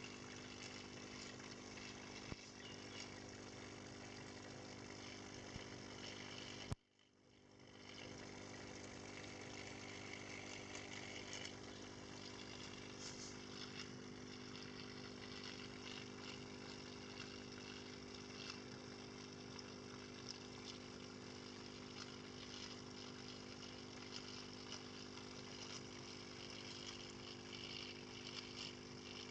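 Aquarium air pump humming steadily, with the fizz of air bubbling through a sponge filter. A single sharp click about seven seconds in, after which the sound briefly drops away and comes back.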